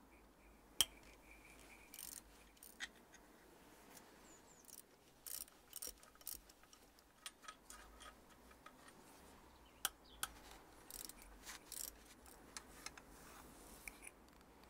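Faint, scattered metallic clicks and ticks of hand tools on engine bolts as they are undone and lifted out, with a sharper click about a second in and another near ten seconds.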